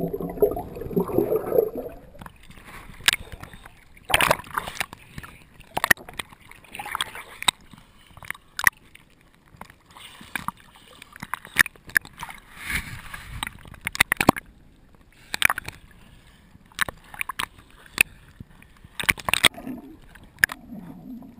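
Underwater bubbling gurgle for about the first two seconds, then irregular sharp splashes and sloshes of sea water breaking over a waterproof action camera as it bobs at the surface.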